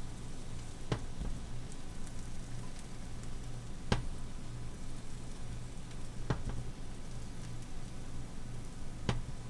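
Batter frying in a cast-iron pan, a faint steady sizzle over a low hum. Four sharp clicks come a few seconds apart: about a second in, near four seconds, past six seconds, and near the end.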